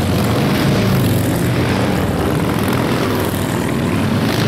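A procession of cruiser and touring motorcycles riding past, several engines running at once in a steady, loud, overlapping rumble.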